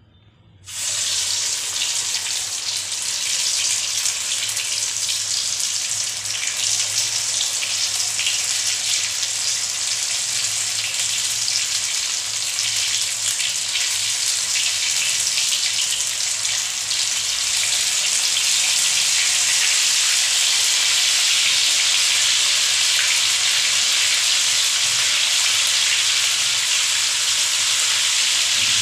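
Maize-batter vadas (mokkajonna garelu) deep-frying in hot oil: a loud, steady sizzle that starts suddenly about a second in and grows a little louder in the second half.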